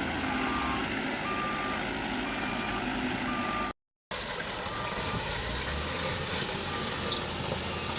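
A reverse alarm beeping about once a second over the low, steady running of a backhoe loader's diesel engine. The sound cuts out completely for a moment just before the middle, then the beeping resumes more faintly.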